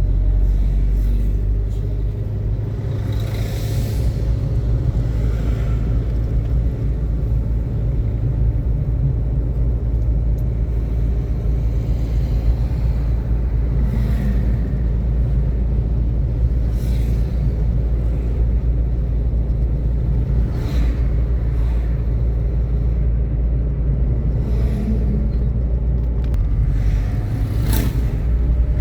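Steady low rumble of a vehicle driving along a road, with about five brief whooshes of other vehicles passing.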